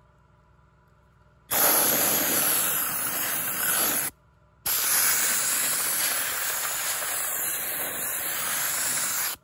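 Harbor Freight gravity-feed handheld soda blaster firing baking soda on compressed air against a steel wheel: a loud, steady hiss that starts about a second and a half in, breaks off for half a second around four seconds, then runs again until it cuts off just before the end.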